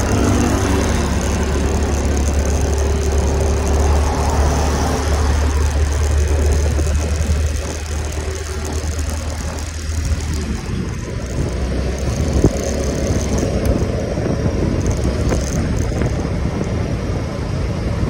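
Yamaha motor scooter underway on an open road: a steady rumble of wind and road noise on the microphone, with the scooter's small engine running under it as it gathers speed.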